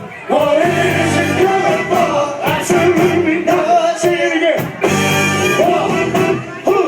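A live soul band playing, with a lead singer holding long, bending notes over a steady drum beat.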